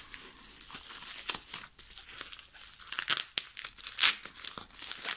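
Plastic bubble wrap crinkling and crackling in irregular bursts as it is handled and pulled open with a small cutter.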